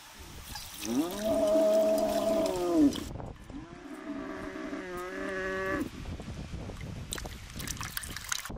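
A cow mooing twice: two long, drawn-out calls, the second wavering in pitch near its end.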